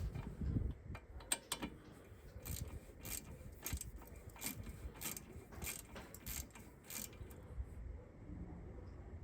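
Small hand ratchet clicking as a brake caliper bolt is wound in, one sharp click about every half second, stopping about seven seconds in.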